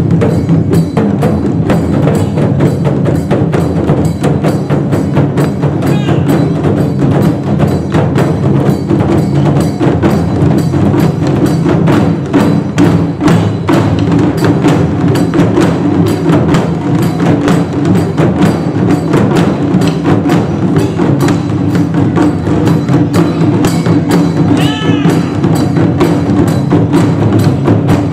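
Japanese taiko ensemble drumming: many taiko struck with sticks together in a fast, dense, unbroken rhythm.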